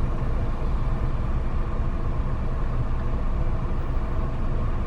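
1992 Suzuki Carry kei truck's small three-cylinder engine running steadily with an even low rumble, in good health.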